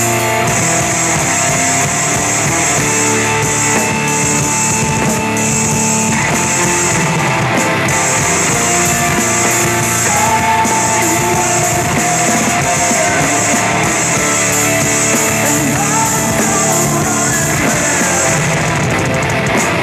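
Heavy rock track with sustained guitar lines and a drum kit played along over it, the cymbals ringing steadily.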